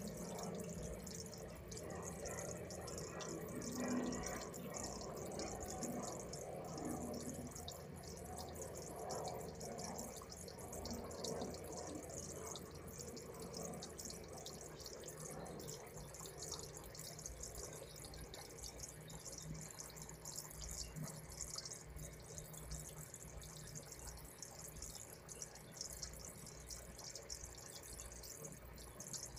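Aquarium air stones bubbling steadily, a continuous fizz of small bubbles breaking and trickling at the water surface, over a low steady hum.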